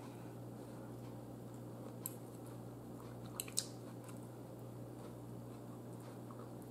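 Quiet chewing of a mouthful of buttered corn and mashed potatoes, with a few soft clicks, over a steady low hum.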